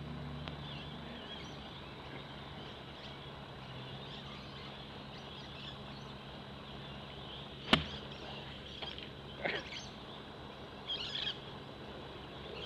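A single sharp click of a golf iron striking the ball off the turf, about two-thirds of the way through, with a few short bird chirps afterwards.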